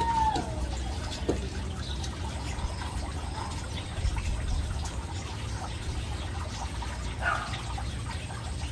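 Steady low outdoor hum with faint noise above it; a drawn-out animal call falls in pitch and ends about half a second in.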